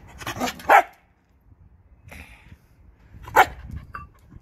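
Jindo dog barking: two quick barks in the first second and one more about three seconds later.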